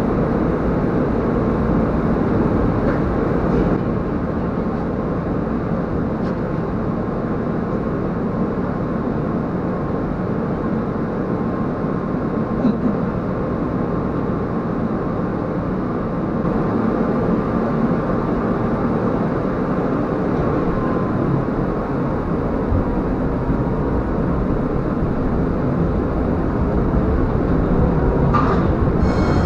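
Tram running along the rails, heard from inside the cab: a steady rumble of wheels and running gear with a faint steady whine. A short high-pitched sound comes near the end.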